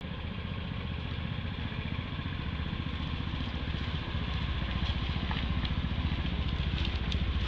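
A small engine running steadily, a fast, even low pulsing that grows slightly louder, with a few faint ticks in the second half.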